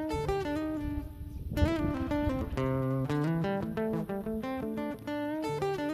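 Background music: a plucked guitar melody of short, quickly changing notes over a moving bass line.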